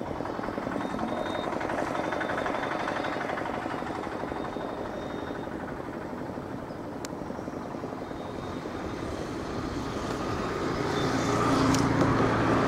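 A motor vehicle engine running steadily with a fast pulsing beat, growing louder near the end.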